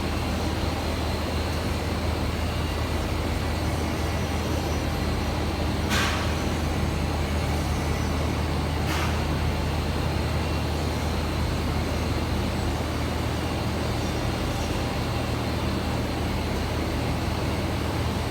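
Steady low hum of running industrial machinery, with two short hisses about six and nine seconds in.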